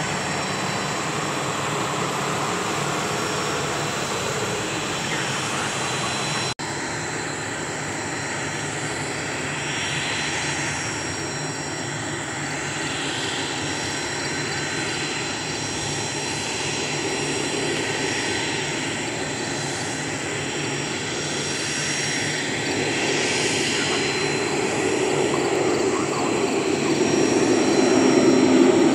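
Twin turbofan engines of a T-1A Jayhawk jet trainer running at taxi power, a steady jet rush with a thin high whine, growing louder near the end. The sound drops out for an instant about six and a half seconds in.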